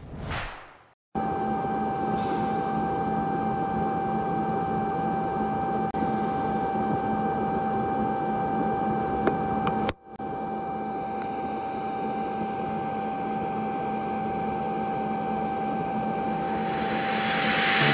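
TIG welding arc on 1.25 chrome steel pipe: a steady hiss with a constant high-pitched hum, breaking off for a moment about ten seconds in. Music fades in near the end.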